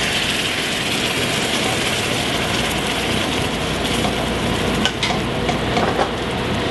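Freshly made, still very hot caramel sizzling steadily as peach slices are tipped into it and stirred with a spatula, with a few light clicks about five to six seconds in.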